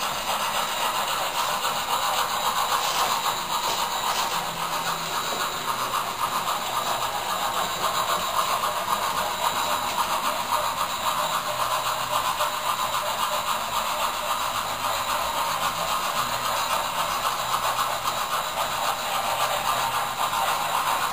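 Bachmann model steam locomotive pulling passenger cars around a model railway layout, a steady rolling running noise of the train on the track.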